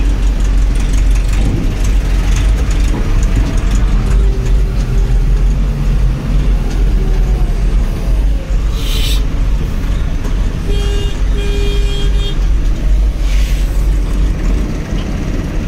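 Heavy diesel engine running steadily, heard from inside the operator's cab, with short hisses about nine and thirteen seconds in and a brief pitched tone near eleven seconds.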